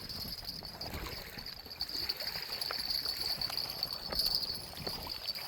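Water lapping and trickling at the reservoir's edge, with a steady high-pitched insect drone, like crickets, running behind it and a few light clicks.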